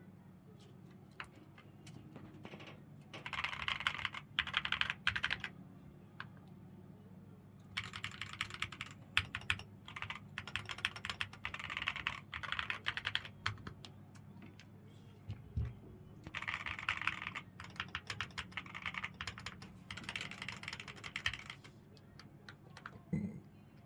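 Keychron Q11 Max mechanical keyboard being typed on in fast runs of keystrokes, with short pauses between the runs.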